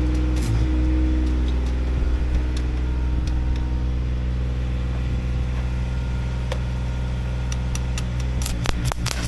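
Diesel engine of a Bobcat Air Pak 200D engine-driven welder running steadily at constant speed, with a few sharp crackles near the end.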